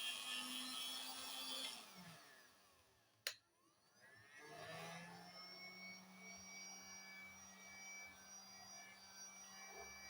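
Heat gun running, its fan motor winding down about two seconds in, a single sharp click about a second later, then the motor spinning back up and running steadily with a high whine.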